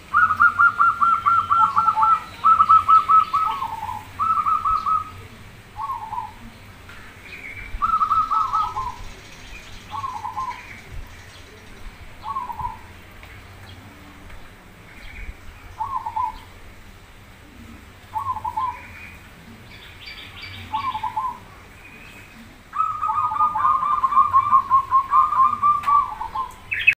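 Zebra dove (perkutut) cooing: a long run of quick, trilled coos at the start, then short coos about every two seconds, and another long run near the end. Fainter, higher chirps of other birds sound now and then.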